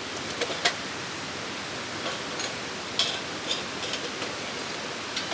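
Wood fire burning in a compact cylindrical fire pit: a steady rushing noise with scattered crackles and sharp pops.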